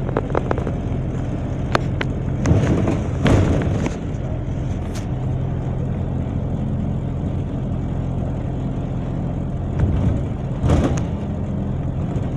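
Double-decker bus heard from inside the upper deck as it drives, its engine giving a steady low drone. The body gives louder rattles and knocks about two to three seconds in and again near the end.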